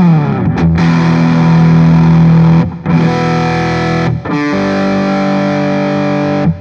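Gibson Les Paul Special Double Cut electric guitar on its neck pickup, played with overdrive through a Soldano Astro 20 amp. A note slides down at the start, then three chords ring out one after another, each held for a second or more. The last is choked off sharply at the end.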